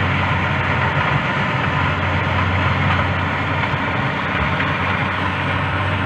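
Corn harvester's engine running steadily, a constant low drone with an even mechanical rush over it.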